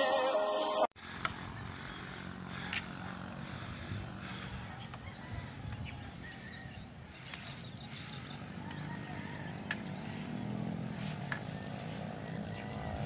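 Intro music cuts off about a second in. Then comes outdoor ambience with a steady, high-pitched drone of insects over a low background rumble, with a few faint clicks.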